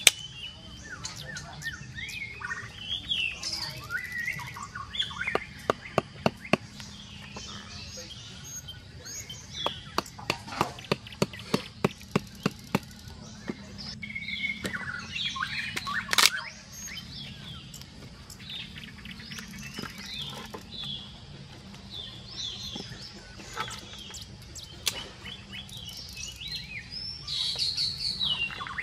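Forest birds chirping and calling throughout, with clusters of sharp wooden snaps and knocks from dry sticks being broken and handled for a small campfire; the loudest crack comes about two-thirds of the way through.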